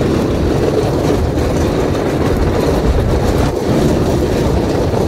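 Great American Scream Machine wooden roller coaster train running at speed along its wooden track, heard from a seat aboard: a loud, steady rumble of wheels on the rails.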